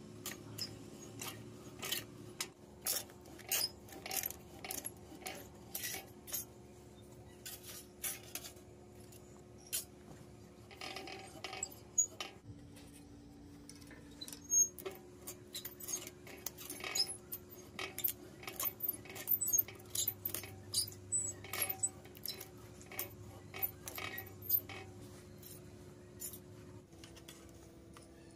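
Irregular light metallic clinks and taps, like small steel parts being handled and knocked together, over a steady low hum that briefly drops in pitch about halfway through.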